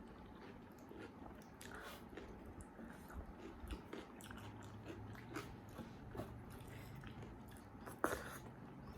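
A person eating: faint chewing with small wet mouth clicks, and one sharper click about eight seconds in.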